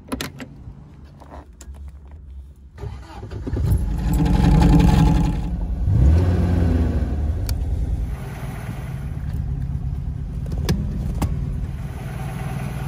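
A few clicks from the door of a 1973 MGB roadster, then its 1.8-litre four-cylinder engine starts about three seconds in, revs up twice and settles into steady running.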